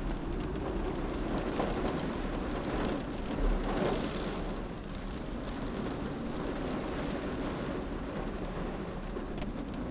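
Steady rushing noise of water, swelling briefly about three and a half seconds in.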